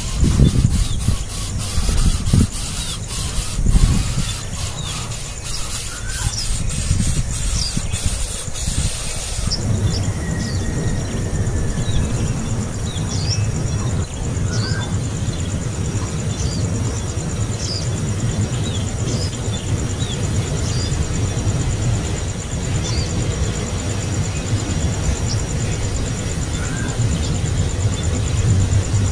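Baby bird begging calls: short, thin, high chirps repeated about once a second, the hungry cries of a chick that is not being fed. A steady low rumble runs underneath, and crackling clicks sound through the first third.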